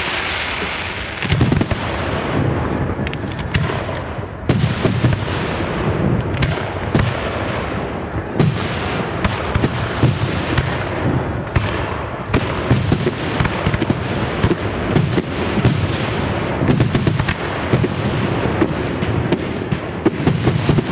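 Professional fireworks display: aerial shells bursting in quick succession, a dense run of sharp bangs one after another, with a hissing rush in the first second or so.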